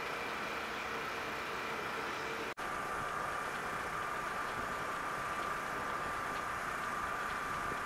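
Boeing 737 jet engines running with a steady whine over a hum, heard from a distance. About two and a half seconds in, the sound cuts out for an instant, then a slightly lower steady whine continues as another 737 comes in on final approach to land.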